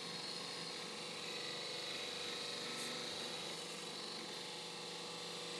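Bench belt grinder running with a half-round lathe gouge, held in a sharpening jig, ground against the belt. Steady grinding hiss of steel on the abrasive belt over the motor's even hum.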